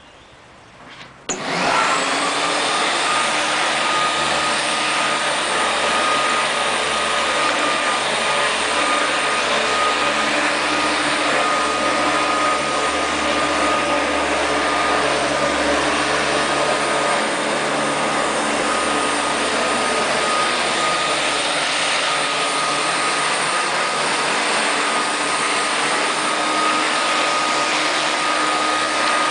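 Flymo Hover Compact 330 corded electric hover mower switching on about a second in, its motor and fan quickly coming up to speed, then running steadily with a high whine while cutting grass.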